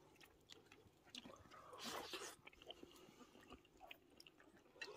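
Faint eating sounds from a meal of soup: spoons clicking against bowls, soft chewing, and a brief slurp about two seconds in.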